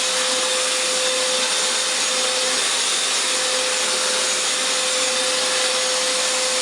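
Hoover FloorMate hard-floor wet cleaner running steadily, its trigger held to spray cleaning solution: even motor rush with a constant whine.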